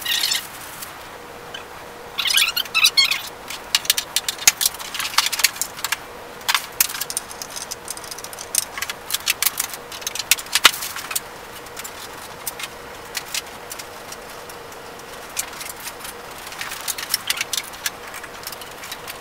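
Sped-up clatter of handling: many quick clicks and knocks of cables, plugs and hardware being moved, with rustling of a plastic bag and bursts of chirpy, high-pitched sound near the start.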